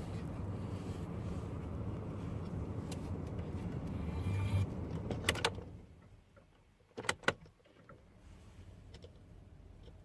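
Steady mechanical running noise from a car that stops about five and a half seconds in, followed by a few sharp clicks.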